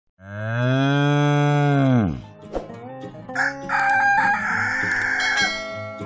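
A cow mooing: one long, loud, low moo of about two seconds whose pitch drops as it ends. A second, higher and rougher animal call follows about three seconds in and lasts about two seconds.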